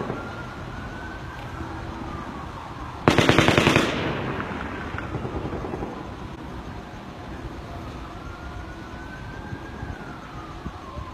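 A rapid burst of automatic gunfire, about ten shots in under a second, about three seconds in. An emergency siren wails slowly up and down before and after it.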